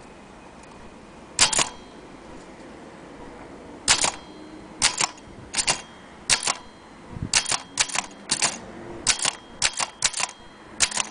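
Antique Corona typewriter being typed on, its keys striking one at a time at a slow, uneven pace: a single stroke about a second and a half in, then a run of about a dozen strokes from about four seconds on.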